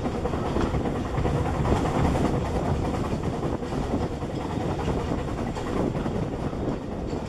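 Narrow-gauge passenger carriage running steadily along the track: continuous rumble and rattle of the wheels on the rails, heard from an open carriage window.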